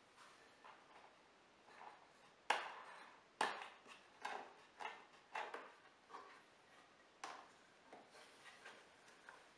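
Faint, irregular knocks, clicks and rubs of plywood jig parts being moved by hand and a metal washer and nut being fitted onto a bolt, with a couple of sharper clicks near the middle.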